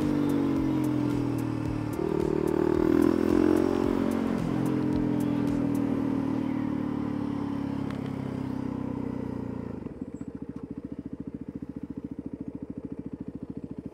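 Supermoto motorcycle engine slowing down: its note falls steadily and jumps up with a downshift about two seconds in and again about four and a half seconds in. About ten seconds in it settles to an evenly pulsing idle.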